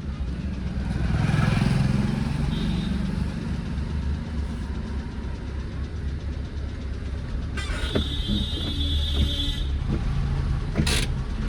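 Maruti Suzuki Eeco van's four-cylinder petrol engine running with a steady low rumble, carrying the clattering 'kat kat kat' from underneath that sounds like ghungroo bells, a noise the owner cannot yet explain and guesses may be a loose wire or a gear. About eight seconds in, a higher hiss with a tone lasts about two seconds.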